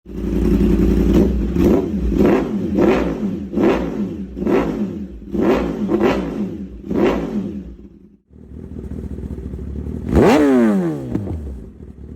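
Inline-four superbike engine through an Austin Racing aftermarket exhaust being revved in about eight quick throttle blips, each pitch rising and falling. After an abrupt cut a bike idles, then is revved hard once near the end.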